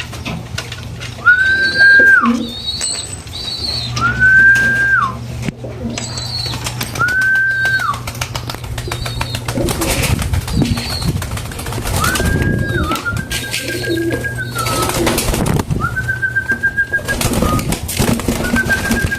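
Birds calling: a series of clear whistled notes about a second long, each held level and then dropping, several of them wavering, with low pigeon coos and scattered clicks beneath.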